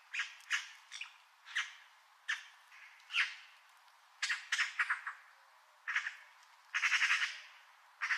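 Eurasian magpie giving short harsh squawks, roughly one or two a second, with a rapid rattling chatter about four seconds in and a longer one about seven seconds in.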